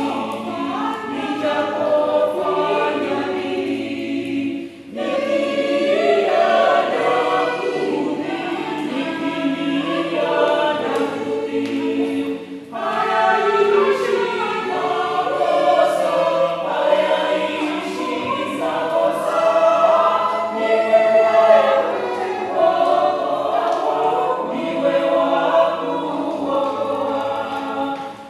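Mixed church choir of men's and women's voices singing a Swahili hymn, with short breaks between phrases about five and twelve seconds in.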